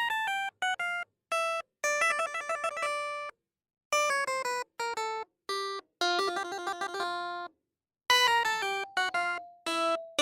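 Light instrumental background music: short keyboard-like melodic notes in quick phrases, breaking off to silence twice.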